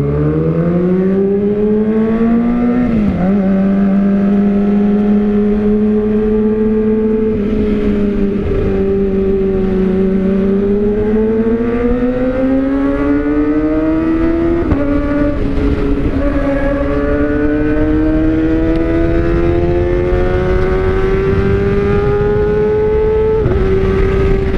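Kawasaki ZX-25R's 250 cc inline-four engine, fitted with an Austin Racing aftermarket silencer, accelerating through the gears: the revs climb, dip at each gear change a few times, and climb again.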